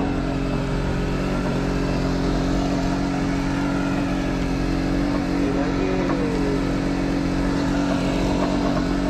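An engine aboard a fishing boat running steadily at one constant speed.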